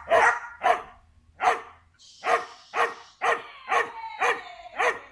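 Dog barking repeatedly: about nine sharp barks, spaced roughly half a second to a second apart.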